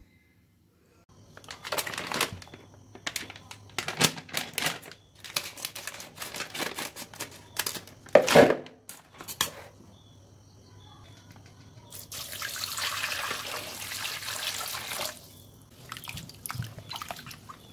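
A plastic packet crinkling and being snipped open with scissors, a string of short crackles with the loudest about eight seconds in. Then water runs from a kitchen tap for about three seconds, and raw chicken drumsticks are sloshed and rinsed in a bowl of water.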